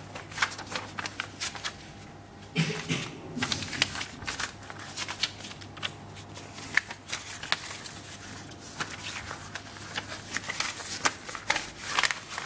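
Pages of a small paper instruction booklet being turned one after another by hand, with dry paper rustling and crisp little snaps as each leaf flips over.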